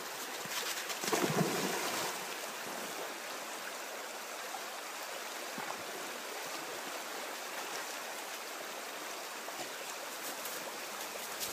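A small stream's water flowing steadily, a little louder about a second in.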